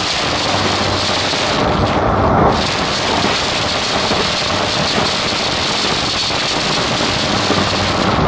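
JR E235-series commuter train running at speed, heard from inside the car: a loud, steady roar of wheels on the rails and rushing air.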